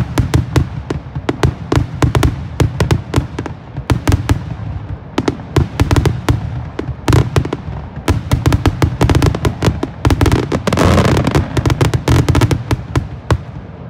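Fireworks grand finale: a rapid barrage of aerial shells launching and bursting, several sharp bangs a second, thickening into a dense crackle about eleven seconds in and stopping abruptly near the end.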